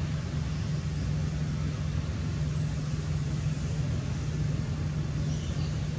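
Steady low mechanical hum over a constant background hiss, engine-like.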